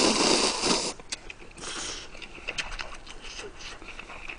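Instant ramen noodles slurped loudly into the mouth for about a second, a shorter slurp about a second and a half in, then chewing with small wet clicks.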